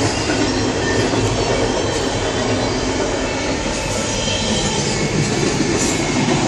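A train passing, a steady, unbroken rolling noise.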